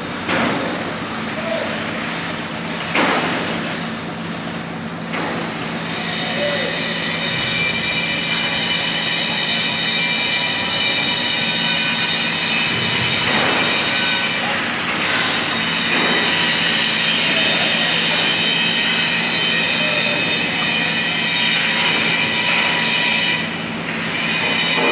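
JCB Loadall telehandler's engine running steadily with a low hum. About six seconds in, a loud, steady high-pitched squeal joins it and cuts off near the end. A few sharp clicks and knocks fall in the first half.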